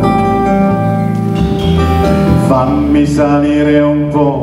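Live band playing a song: electric guitars, bass and drums, with a saxophone and a lead voice carrying long held melody notes over them.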